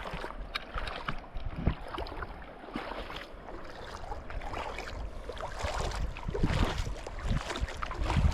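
River water sloshing and splashing, with wind buffeting the microphone; the splashing grows louder over the last couple of seconds.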